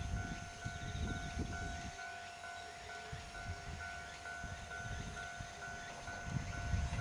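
Japanese railway level-crossing warning alarm ringing as a diesel railcar approaches: a repeating electronic ding a little over twice a second over a steady hum-like tone, with low gusty rumble underneath.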